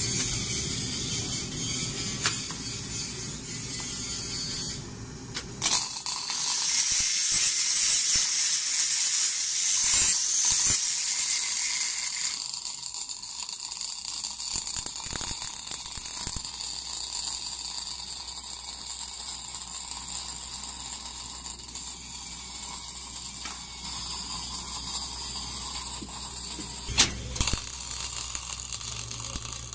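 Automatic orbital pipe-welding carriage running its arc around a steel pipe joint: a steady crackling hiss, with a few sharp clicks, the loudest near the end.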